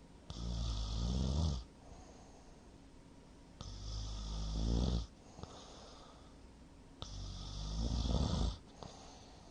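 A man snoring heavily in his sleep: three loud snores, each about a second and a half long, coming roughly every three seconds with quiet breathing gaps between. The sleeper puts the heavy snoring partly down to having drunk too much.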